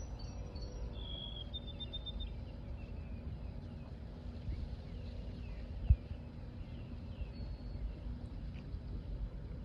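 Bay shoreline ambience: a steady low rumble of water and wind, with birds chirping high and thin throughout. A single sharp thump about six seconds in.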